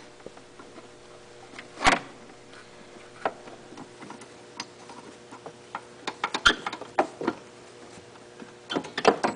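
Steel wrenches clinking and clicking against the brake adjuster bolt and jam nut of a 1990s Arctic Cat snowmobile's cable-operated brake caliper, in scattered taps with a cluster about six to seven seconds in, as the bolt is turned in to push the pads in and firm up the brake. A faint steady hum runs underneath.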